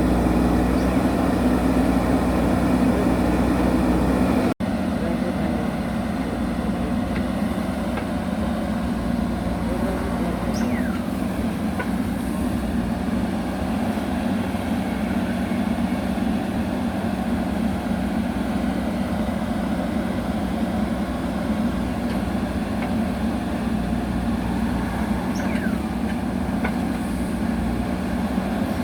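JCB backhoe loader's diesel engine running steadily, with a momentary break about four and a half seconds in, after which it carries on slightly quieter.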